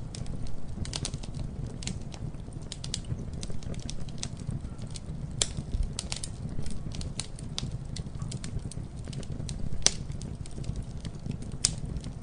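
Campfire burning with a steady low rumble and constant irregular crackling and popping, a few sharper pops about five and a half seconds in, near ten seconds and near the end.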